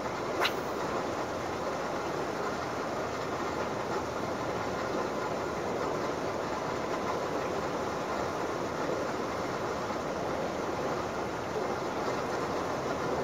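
A spinning rod swishes once in a quick cast about half a second in, over a steady rushing noise of the sea.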